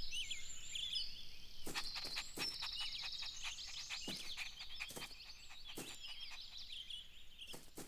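Birdsong ambience: many small birds chirping and trilling in quick high notes, with a few short clicks scattered through.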